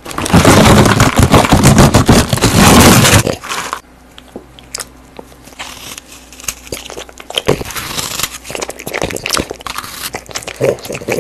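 A treat packet crinkled loudly right against a microphone for about three seconds, then a French bulldog crunching and chewing hand-fed strawberry pieces close to the mic, in irregular crunches.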